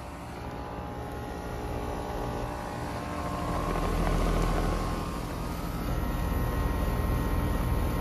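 Outdoor air conditioner condenser units running in cooling mode, giving a steady mechanical drone of the condenser fans and compressors. It gets louder about four seconds in, when a running condenser fan is close.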